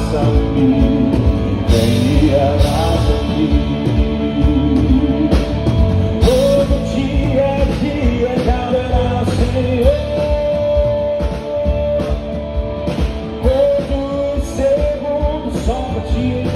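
A live band playing a gospel song: a man sings the melody into a microphone over electric bass, drums and electric guitar, with steady drum hits driving the groove.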